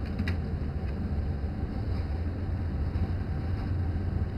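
A steady low hum with a few faint clicks about a quarter of a second in.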